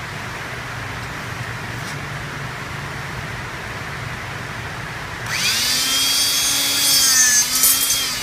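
Handheld electric-hydraulic rebar cutter's motor starting about five seconds in with a rising whine and running a cutting stroke with a hissing rush. Its pitch sags slightly as it comes under load near the end, then winds down. Before it starts there is only a steady low hum.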